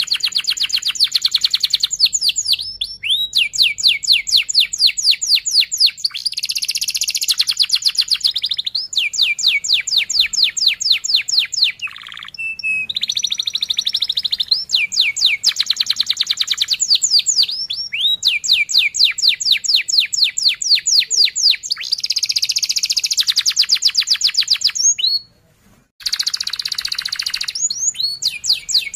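Domestic canary singing a long rolling song: fast trills of evenly repeated high chirps, about eight to ten a second, in phrases of one to three seconds that shift pitch from one phrase to the next, with one brief pause near the end.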